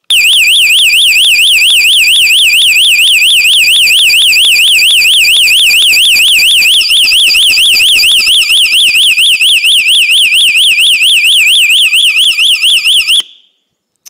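Electronic fire alarm horn sounding a fast, high warbling tone that sweeps rapidly up and down without a break, really loud, then cuts off suddenly near the end. It is switched on and off with a vehicle emergency kill switch used as a homemade pull station.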